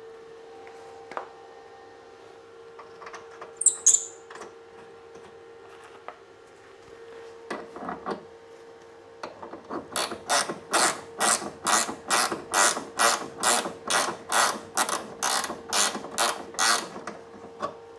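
Ratcheting ring spanner clicking in quick, even back-strokes, about three a second, as a bolt is wound in on the rear suspension link arm. A couple of sharp metal knocks come earlier, about four seconds in.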